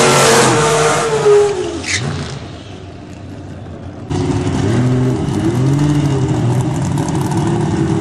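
Drag car engine held at high revs through a tyre-smoking burnout, then backing off and dropping away about two seconds in. After an abrupt cut, a race engine revs up and down in repeated blips.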